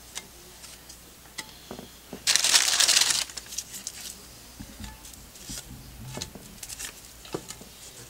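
Saltine crackers' plastic sleeve crinkling and crackling for about a second, a couple of seconds in, as a stack of crackers is pulled out. Scattered light ticks come from crackers being set against a glass loaf pan.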